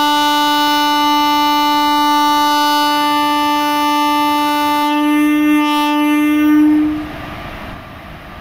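Indian Railways locomotive horn sounding one long, steady blast for about seven seconds as the train gets ready to depart. The blast swells slightly just before it cuts off near the end.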